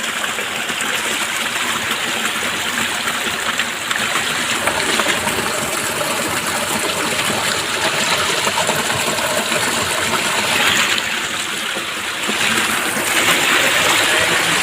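Small rain-fed forest waterfall pouring down over rock: a steady rush and splash of water, a little louder near the end.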